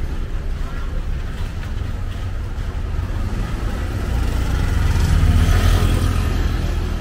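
Steady low rumble of street traffic, swelling as a motor scooter passes close about five seconds in. Its engine and its tyres hissing on the wet road grow loud, then fade.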